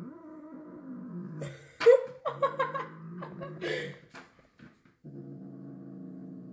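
Calico cat vocalising: a drawn-out, wavering yowl, then a run of short, sharper cries in the middle, and another long, steady yowl near the end.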